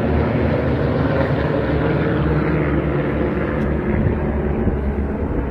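A formation of about two dozen small propeller planes flying overhead together, their many engines making one steady drone.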